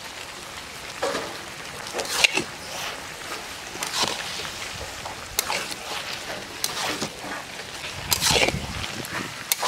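Thick cabbage, potato and brinjal curry being stirred and scraped in a large wok, about seven wet, squelching strokes at uneven intervals over a steady hiss.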